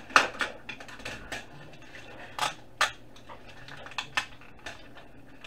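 The sheet-metal case and parts of a DVD drive clinking and clattering as they are bent apart and the inner assembly is pulled out by hand, in a scattered string of sharp, irregular clicks.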